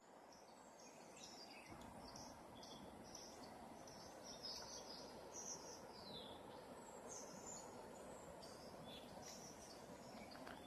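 Faint birds chirping and twittering: many short, high calls, one after another, over a low steady background hiss.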